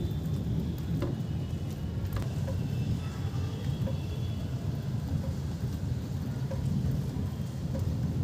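Light rain falling on a wet concrete rooftop and its puddles, over a steady low rumble, with a few sharp drip clicks, two of them about a second and two seconds in.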